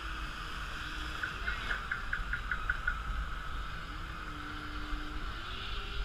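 Steady rush of river water around a rapids-ride raft, with a low rumble of wind on the microphone. About a second and a half in, a short run of quick high pips.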